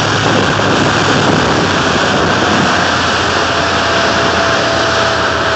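Motorboat engine running steadily under a constant hiss of wind and water.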